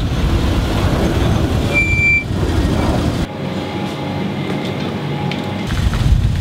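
Small hatchback's engine running as the car rolls up and stops at a drive-through hatch, a steady low rumble mixed with outdoor wind noise. A short high beep comes about two seconds in. The low rumble drops away for a couple of seconds in the middle.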